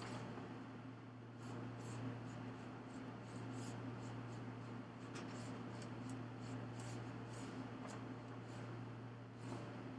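Faint, irregular light rustling and scratching, like something handled or rubbed at close range, over a steady low hum.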